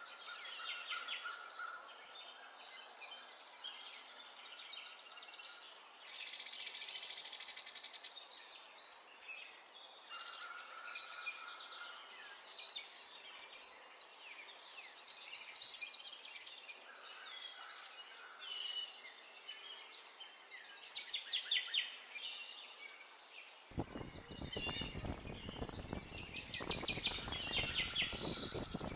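Wild birds chirping and calling on and off. Near the end, crackling of aluminium foil being unwrapped by hand joins in and becomes the loudest sound.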